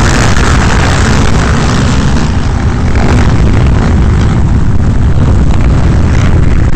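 Many quad-bike (ATV) engines running and revving together on a race starting grid, loud and steady throughout.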